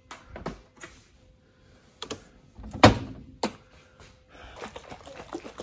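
A few light clicks, then three sharp knocks about half a second apart, and faint shuffling: a lidded container of green juice being handled.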